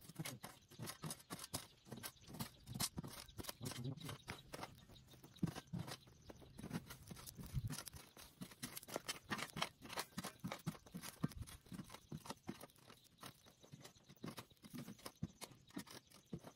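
Shovel scraping and scooping stony soil and embers around a tin can set in the ground, giving many irregular crunches and scrapes of gravel and dirt.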